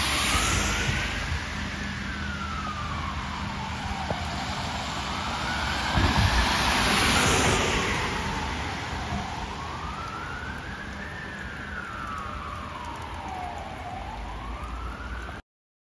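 Fire engine siren wailing, its pitch sweeping slowly up and down about every four to five seconds over a steady hiss of rain. It grows louder toward the middle, fades as the truck pulls away, and cuts off abruptly near the end.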